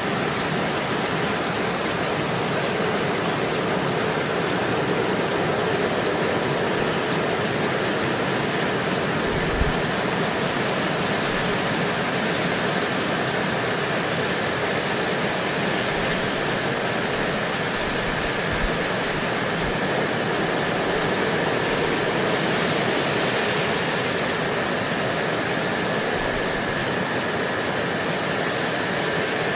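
Steady rain falling, an even hiss of water with no let-up.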